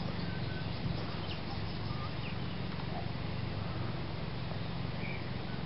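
Outdoor background of scattered short bird chirps and calls over a steady low hum.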